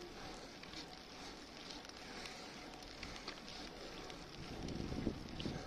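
A bicycle rolling slowly on asphalt: a faint steady hiss from the tyres and wind on the microphone, with scattered light crackling clicks. A low wind rumble grows louder near the end.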